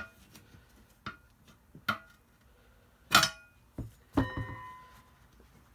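Tire irons clanking against a wheel rim while prying a tire off by hand: about six separate metal knocks, the loudest about three seconds in, the last one ringing on briefly.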